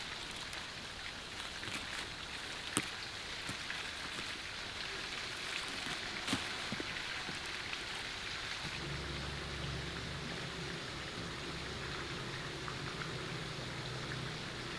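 Leafy greens being pulled up by hand: leaves rustling, with a few sharp snaps, over a steady hiss. A low steady hum joins about nine seconds in.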